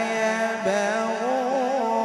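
A male qari's melodic Quran recitation (tilawat), amplified through a microphone. One long, ornamented note wavers up and down in pitch, with a short break about half a second in.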